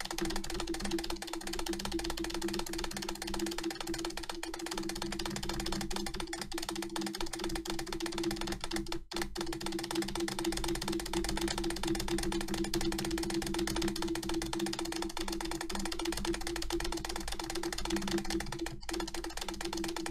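Acer keyboard spacebar being hammered in a fast, continuous run of clicks, about eight presses a second, with a brief break about nine seconds in. A steady low tone sits underneath.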